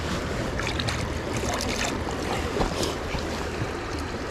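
Steady rush of river water flowing over rocks, with a low rumble of wind on the microphone.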